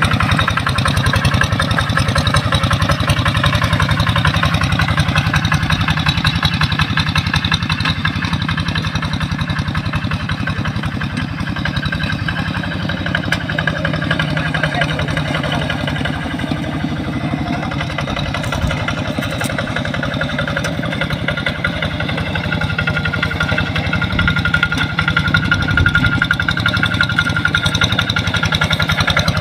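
A two-wheel hand tractor's single-cylinder diesel engine running steadily under load as it pulls a moldboard plough through wet paddy mud, with a fast, even firing beat. It grows a little quieter through the middle and louder again near the end.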